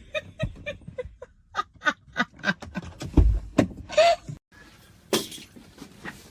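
A person laughing in a quick run of short ha-ha bursts, about four a second, then a short high cry about four seconds in. Two sharp knocks follow near the end.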